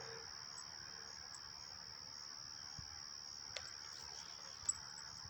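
Crickets trilling steadily at one high pitch, with two short clicks in the second half, the later one louder.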